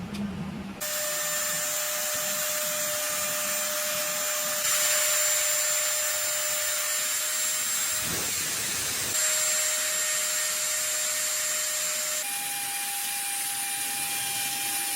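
Lathe cutting metal: a steady hissing cut with a steady whine, the pitch and level jumping abruptly a few times.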